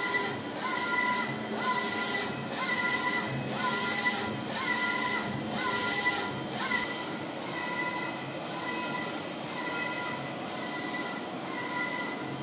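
Textek 60 cm UV DTF printer's printhead carriage shuttling back and forth across the print bed, its drive motor whining up in pitch at the start of each pass and holding, about one pass a second, over a steady hiss. The passes grow fainter after about seven seconds.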